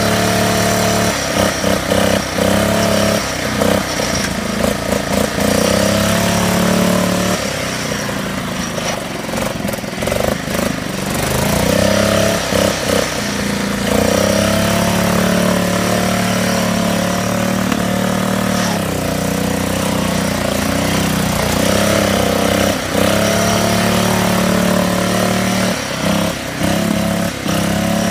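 Riding lawn mower's engine running as it churns through deep mud, its pitch sagging and recovering several times as the load comes and goes, with choppy dips in the first few seconds and again near the end.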